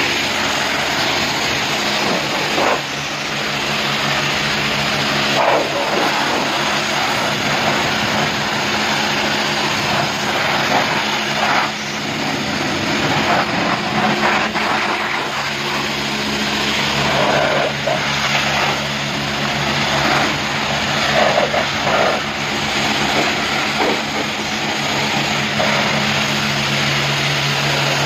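High-pressure water jet from a self-service car-wash lance spraying a car's bodywork: a steady hiss of spray that swells and dips as the jet moves, with a steady low hum underneath.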